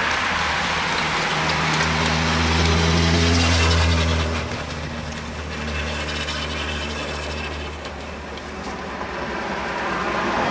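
A motor vehicle's engine passing close by, as a steady low hum over road and crowd noise. It grows loudest about two seconds in and drops off after about four seconds.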